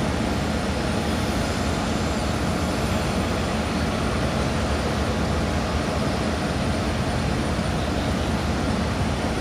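Boeing 747-8 on final approach, its four GEnx-2B jet engines heard from afar as a steady noise with no rise or fall.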